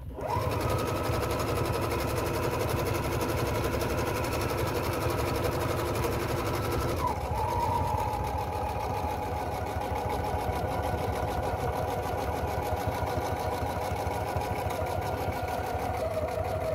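Husqvarna Viking 610 electric sewing machine starting up and stitching through thick quilted material: a motor whine over a fast, steady run of needle strokes. About seven seconds in the machine slows to a lower pitch, and it drops a little lower again near the end.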